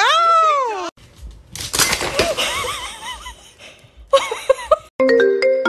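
A long cry that rises and then falls, then laughter. Shortly before the end, a quick clatter of bottles and jars knocked over onto a hard floor, and music with a marimba-like tune comes in near the end.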